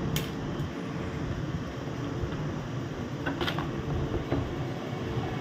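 Steady low fan-like hum of the room, with a few short light clicks as multimeter probe tips touch the laptop motherboard, one just after the start and a couple about three and a half seconds in.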